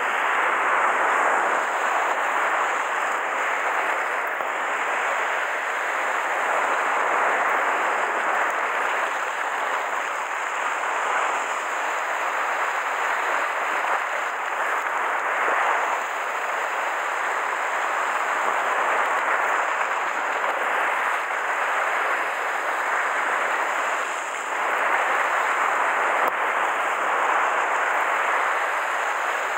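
Sea surf surging and washing against a rock ledge: a steady rushing noise that swells and eases with the waves.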